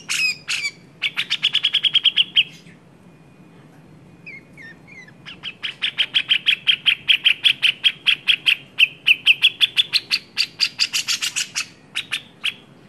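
Cucak jenggot (brown-cheeked bulbul) giving a fast, agitated chattering call: two long runs of sharp repeated notes, several a second, with a pause of about three seconds between them holding a few soft chirps.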